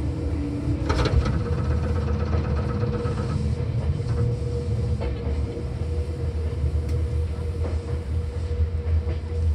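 Seibu 4000 series electric train running, heard from inside the car near its line breaker: a steady low rumble with a steady hum over it. A sharp click comes about a second in.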